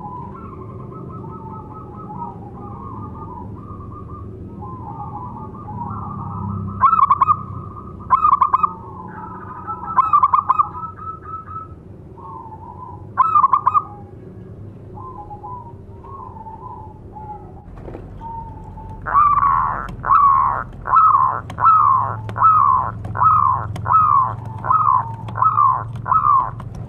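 Zebra dove (perkutut) calling: a few loud cooing notes in the first half, then a quick, even run of about a dozen short cooing notes, each dropping in pitch, from about two-thirds of the way through.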